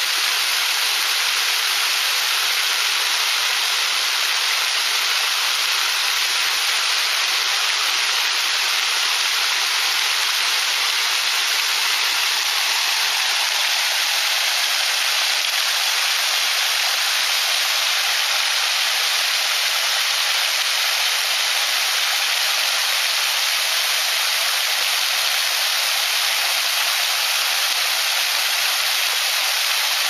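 Small waterfall pouring over rocks into a pool: a steady, even rush of splashing water, mostly hiss with little low rumble.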